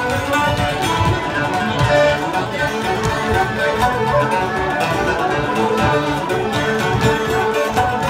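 Lively traditional dance music played on fiddle and plucked strings, going without a break.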